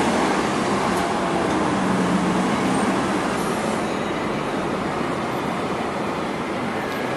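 Road traffic on a town street: a coach and cars driving past, a steady mix of engine and tyre noise that is loudest at the start and eases off.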